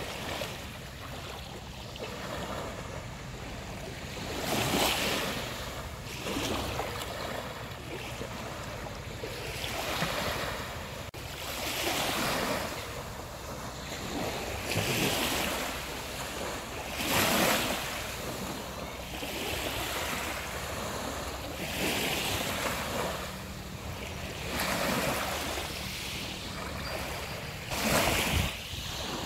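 Small waves breaking and washing up a beach, a swell of surf every two to three seconds, over a steady low rumble.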